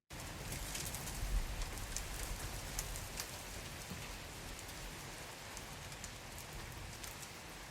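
Steady rain falling on a surface, with many individual drops ticking distinctly through the hiss and a low rumble underneath, strongest about a second in. It starts suddenly out of silence.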